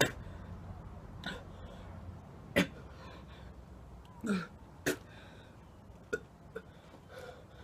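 A man gagging and retching, with short coughs and throat clearing, a sharp one every second or so, after drinking a shot of soy sauce, hot sauce and raw fish juice.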